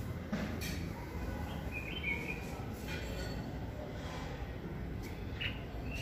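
Red-whiskered bulbul giving short whistled calls, a short phrase about two seconds in and a brief note near the end, over a steady low background rumble.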